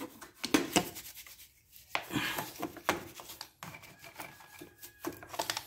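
Irregular rubbing and scrubbing strokes as a dirty engine bay is cleaned by hand, with a few sharper strokes among them.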